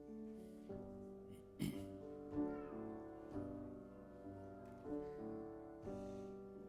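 Piano playing slow, held chords that change about every second, as quiet accompaniment to a church benediction. A single sharp knock sounds about one and a half seconds in.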